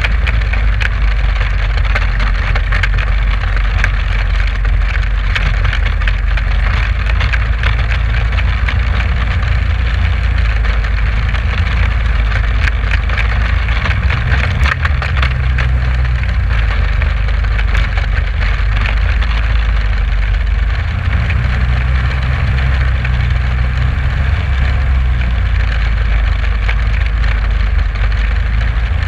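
A 1967 Amphicat six-wheel amphibious ATV being driven, its engine running with a steady low drone that changes note a few times. A constant crackling rattle from the hull and running gear is heard over it.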